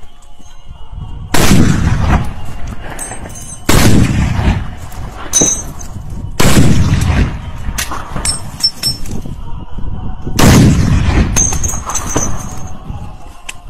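Four heavy shots from a large-calibre rifle, a few seconds apart, each followed by a long, echoing rumble.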